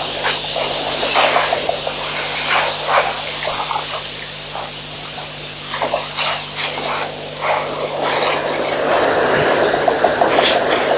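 African elephants drinking at a waterhole: repeated splashing and gushing as water is squirted from their trunks, over a steady low electrical hum and hiss, with the splashing growing denser near the end.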